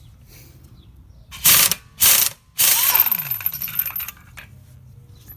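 Impact wrench undoing a car wheel's lug nuts: two short bursts, then a longer one of about a second and a half whose pitch falls away as the tool spins down.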